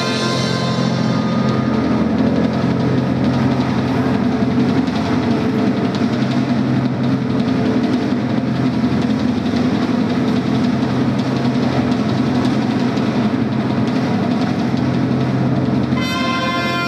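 Ceremony music holding a steady, sustained low chord with a dense, unbroken texture. About 16 s in, two trumpets come back in with a bright fanfare.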